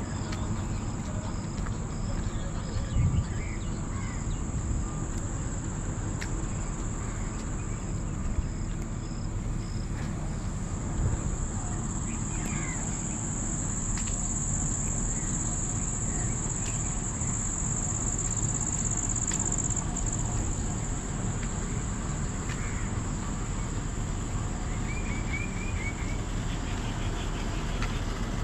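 A steady, high-pitched insect trill from the garden vegetation, louder about halfway through. Underneath it runs a low rumble, with a few short chirps.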